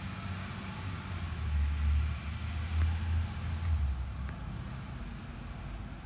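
A motor vehicle passing on a nearby road: a low engine and tyre rumble that swells about a second and a half in and fades away after about four seconds, over steady outdoor background noise.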